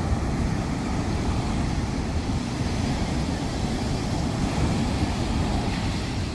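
Sea waves washing onto a sandy beach, a steady wash of surf with wind rumbling on the microphone.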